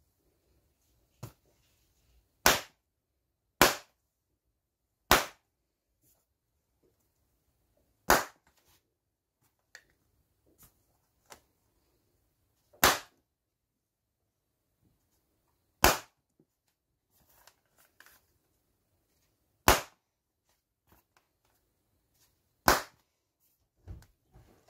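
Small latex balloons popped one at a time with a pin: eight sharp bangs a few seconds apart, unevenly spaced, with a quieter pop about a second in. Faint small handling sounds come between the pops.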